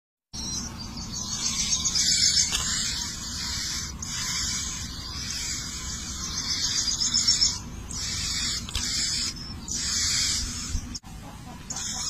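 Nestlings begging for food: high, hissing, rapidly pulsing calls in runs of a second or more, broken by brief pauses.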